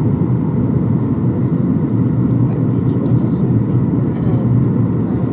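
Steady low rumble inside a Boeing 737's passenger cabin: engine and airflow noise.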